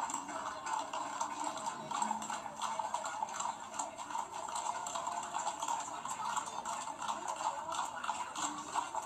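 Horses' hooves clip-clopping on a paved street, many irregular clicks from several horses walking, with a thin, tinny sound.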